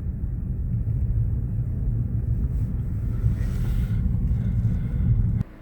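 Steady low rumble of road and engine noise inside the cabin of a 2013 Nissan Rogue on the move, cutting off suddenly near the end.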